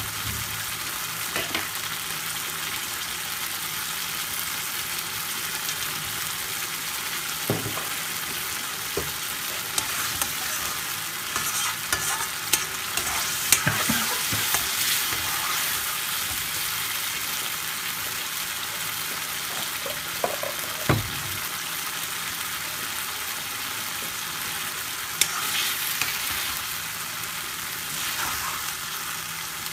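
Chicken karahi in a thick curry sauce frying in a metal karahi, with a steady sizzle, as a spoon stirs it. The spoon knocks against the pan a few times.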